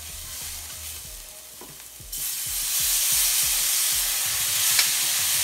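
Wooden spoon stirring red chillies in a hot frying pan. About two seconds in, vinegar hits the pan and it sizzles loudly, with a steady hiss of steam.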